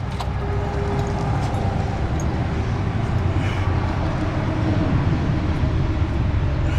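A steady low mechanical rumble, like an engine or motor running, with a few faint clicks over it.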